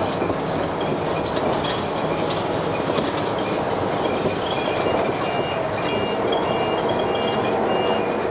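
Dennis Arrow bus heard on board while under way: a steady, loud rumbling and rattling drive noise with grinding in it. From about halfway a high, thin tone pulses about twice a second over it.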